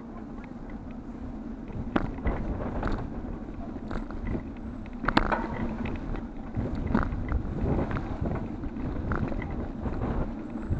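Riding a bicycle over paving slabs: wind rushes over the camera's microphone with a steady low rumble, broken by a few sharp clicks and knocks as the bike rattles over bumps.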